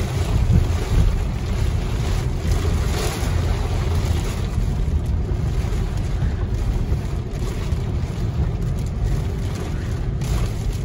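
Car driving on a rain-soaked road, heard from inside the cabin: a steady low rumble of tyres on the wet road with the hiss of heavy rain on the car.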